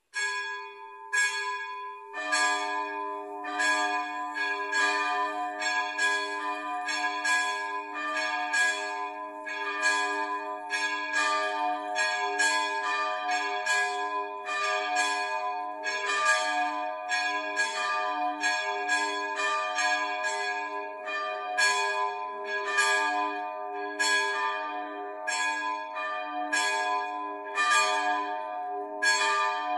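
Two hand-rung swinging church bells from 1744, tuned to a sharp D and an A-flat, ringing the signal that calls people to Mass. The higher bell starts alone and the lower one joins about two seconds in, after which the two strike over and over in an uneven, overlapping peal.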